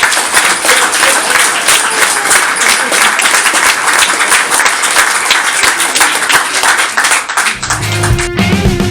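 Audience applauding with dense, steady clapping. Near the end, distorted electric guitar music comes in.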